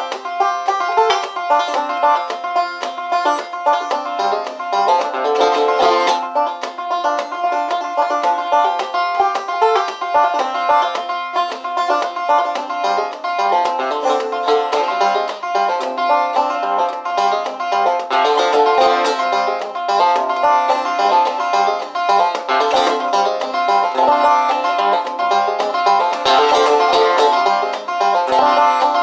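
Resonator banjo played clawhammer (frailing) style with sitar picks (mizrabs) and a thumbpick: a steady, quick run of plucked notes in an old-time tune.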